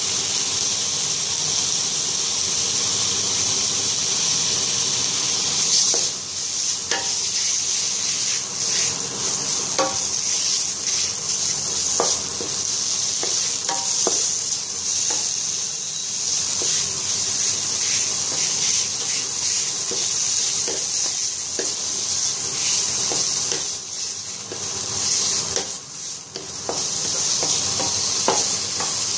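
Food sizzling in hot oil in a wok while it is stir-fried, with a spatula scraping and knocking against the pan now and then. The sizzle dips briefly near the end.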